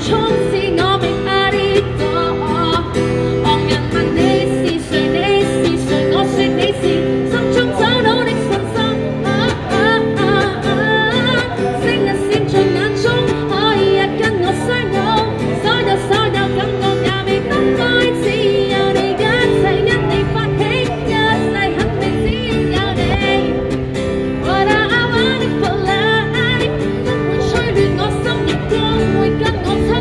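A woman singing a pop song to her own strummed acoustic guitar, voice and guitar running together without a break.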